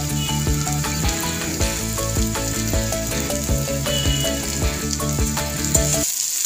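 Diced potatoes sizzling as they fry in hot oil in an iron kadai, a steady hiss, with background music playing over it. The music drops out just before the end while the sizzling goes on.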